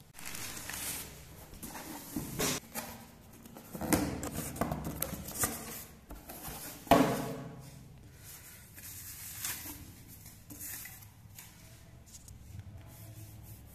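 Cardboard box and foam packing sheets being handled: irregular rustling and scraping as the box is opened and the foam lifted out, with a sharp knock about seven seconds in and quieter handling after it.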